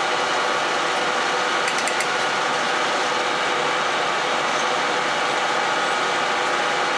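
Metal lathe running steadily, its spindle and gearbox giving a steady whirring drone with a held whine. A few light clicks come about two seconds in.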